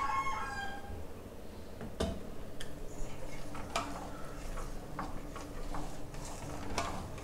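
Steel ladle stirring thick rice-flour porridge in a steel pot, giving a few irregularly spaced light clinks and scrapes against the pot.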